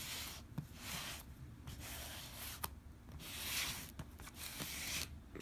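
Cardboard box being worked open at its seal: a series of short scratchy rubbing strokes with a few light clicks.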